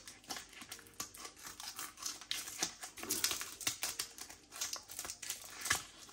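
Plastic vacuum-pack wrapping on a sausage crinkling as it is handled and cut open with scissors, in irregular short rustles and clicks.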